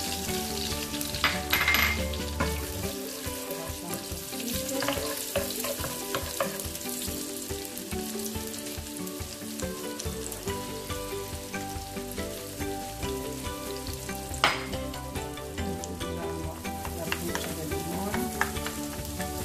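Chopped red onion sizzling as it fries in oil in a frying pan, stirred with a wooden spoon. Two sharp knocks stand out, one about two seconds in and one about three-quarters of the way through.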